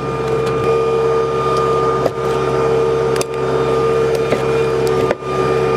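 Tractor diesel engine running steadily with a steady whine, driving the hydraulics of a three-point log splitter, with a few short knocks and clicks of wood and steel being handled.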